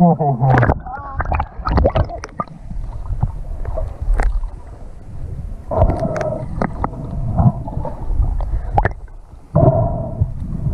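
Water splashing and gurgling as the camera goes under the lake surface, then muffled underwater gurgles with scattered sharp clicks and knocks, heard through a waterproof action-camera housing.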